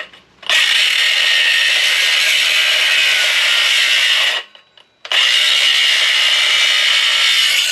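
Battery-powered cutting tool running while it cuts through a part of a scrapped microwave, in two runs of about four and two and a half seconds with a short stop between them. The battery is nearly dead.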